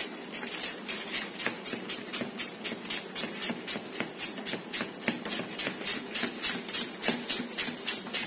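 Peeled raw potato being grated back and forth over a plastic julienne grater's blades into shreds, a steady rhythm of scraping strokes at about five a second.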